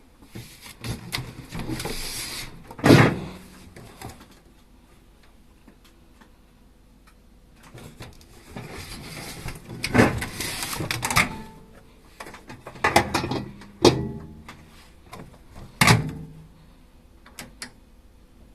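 Handling noise around a microwave oven: rustling and sliding sounds broken by several sharp knocks and clunks. The loudest clunk comes about three seconds in, with others near ten, fourteen and sixteen seconds.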